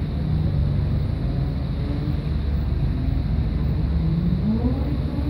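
A procession of cars driving past one after another, their engines running steadily, with one engine revving up a little past four seconds in.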